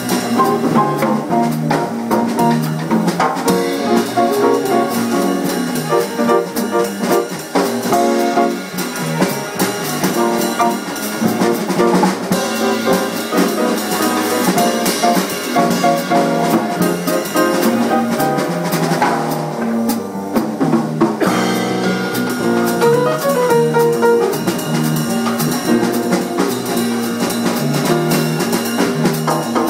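Jazz band jamming, with an upright piano played alongside a drum kit keeping time.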